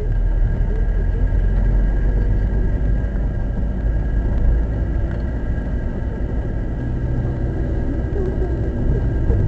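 A car's engine and tyres heard from inside the cabin while it drives up a snowy, salted road: a steady low rumble.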